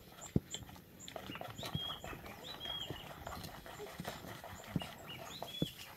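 Spoons knocking and scraping in cooking pots, the sharpest knock about a third of a second in, while an animal keeps up short, thin, high whining calls about once a second.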